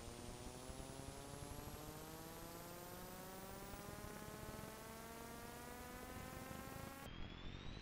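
Faint steady hum and hiss of the transfer equipment behind a silent 8mm home film. A set of whining tones slowly rises in pitch and drops back abruptly about seven seconds in.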